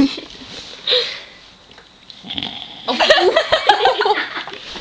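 A sleeping woman snoring: one short snore about a second in, then after a pause a longer, irregular bout of snorting snores.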